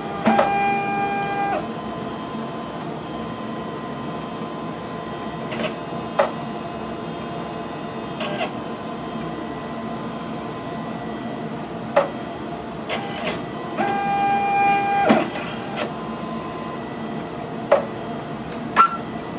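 HPLC autosampler at work, picking up a sample from a vial to inject it. Its motors whir in two short pitched runs of about a second and a half, near the start and again about two-thirds through, between sharp clicks as the needle arm moves, over a steady hum.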